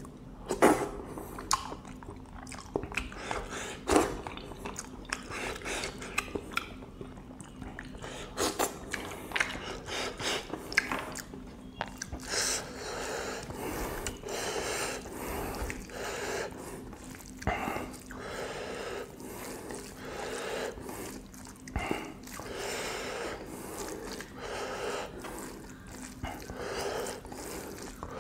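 Close-miked chewing and lip-smacking of a person eating pork and taro-flower curry with rice, with many sharp wet clicks. Sticky squelches of fingers mixing rice into the curry.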